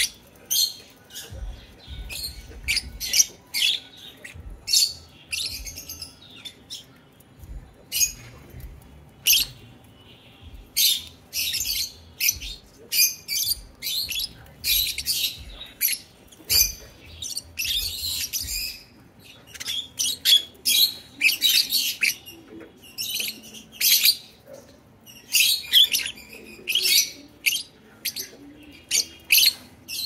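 A flock of caged lovebirds, peach-faced and Fischer's, chattering with many short, shrill chirps and squawks in quick succession.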